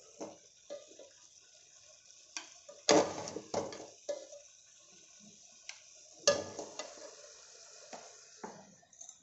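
Metal spoon scraping and knocking against an aluminium cooking pot as cooked green tomato sabzi is scooped out. There are a scattering of short, sharp clinks, the loudest about three seconds in and again about six seconds in.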